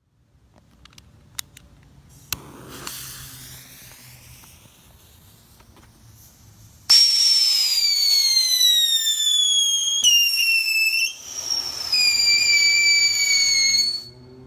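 Great Grizzly Whistle Pete ground whistle firework whistling loudly for about seven seconds. The whistle falls slowly in pitch and breaks off briefly twice. Before it, a sharp click and a few seconds of faint hiss.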